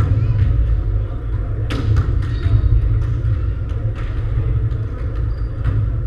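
Volleyball play in a sports hall: a few sharp smacks of the ball being struck, the clearest about two seconds in, over a steady low rumble.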